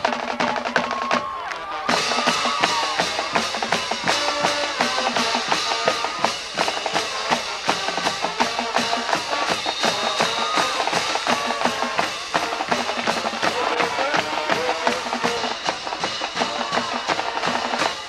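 Band music: drums keeping a steady beat under horns playing a tune, filling out about two seconds in.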